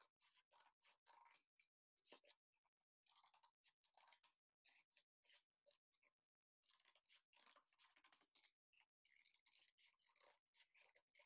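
Faint crunching snips of scissors cutting through corrugated cardboard, a long irregular run of short cuts with brief pauses between them.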